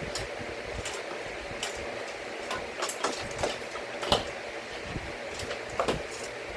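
Irregular small clicks and knocks of power-supply cables and plastic connectors being handled and fitted in a PC case, the sharpest one a little past halfway, over a steady background hum.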